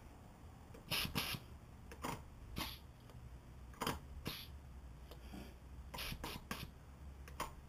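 Short, faint puffs of air hissing from the air valve of a front fork tube, about ten in all, as a pencil tire gauge is pressed onto it to read and bleed the fork's air pressure.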